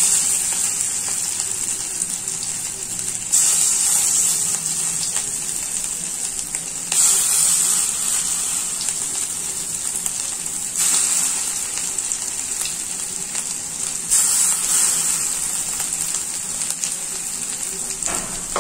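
Bitter gourd and egg fritter mixture frying in hot mustard oil in a kadai: a steady sizzle that flares up sharply every three to four seconds as each new portion of batter is dropped into the oil, then settles again.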